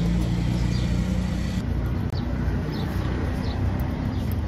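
Outdoor background noise: a steady low rumble, with a few short bird chirps scattered through it.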